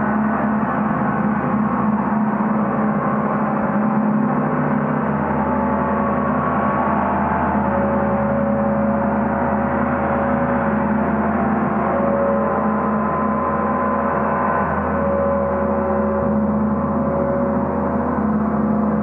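Gong sounding continuously in a dense, steady wash with no distinct strikes, its shimmering upper tones swelling and fading over several seconds.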